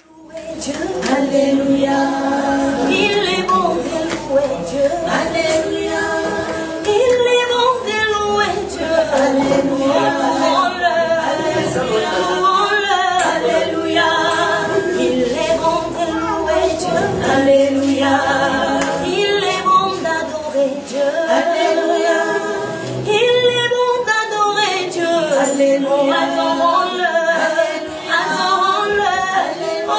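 Small group of women singing a gospel praise song a cappella in harmony, without instruments.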